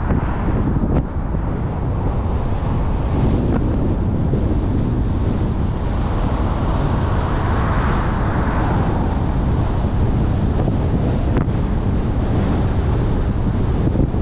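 Steady rush of wind on the microphone and tyre and road noise from a car driving along, swelling and easing again about halfway through.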